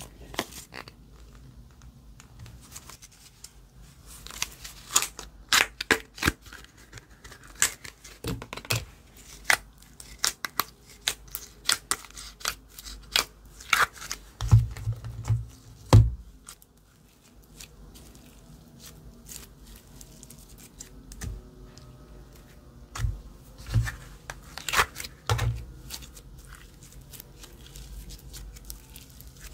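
Slime being kneaded and stretched by hand, giving irregular sticky clicks, pops and crackles, with a few dull thumps as it is pressed down, about halfway through and again near the end.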